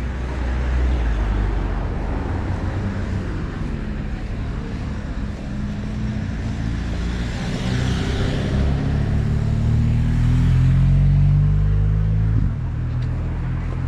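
A motor vehicle's engine on the road, its pitch rising as it accelerates past, loudest near the end before cutting off abruptly.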